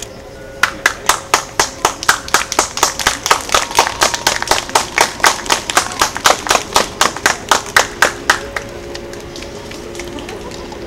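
Hands clapping in applause close to the microphone: a quick, even beat of about four to five claps a second. It starts just under a second in and stops about three-quarters of the way through.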